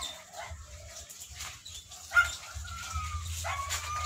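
A dog whining, with two drawn-out high whines, about two seconds in and near the end, that slide slightly down in pitch, over a low rumble.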